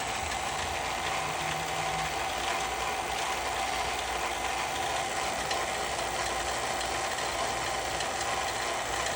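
A 1/3 hp vacuum pump running steadily, a fast even mechanical rattle over a steady hum, as it holds the chamber at a deep vacuum.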